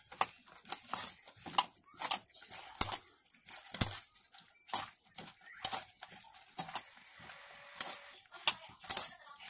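A hand squeezing and turning small whole fish in a wet spice-and-cornflour coating in a steel bowl: irregular wet squelches and sharp clicks, about one or two a second, with bangles clinking against the bowl.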